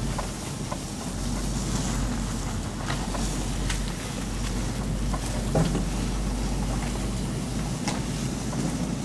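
Pickup truck engine running with a steady low rumble as the truck rolls slowly, with scattered sharp crackles and clicks along the way.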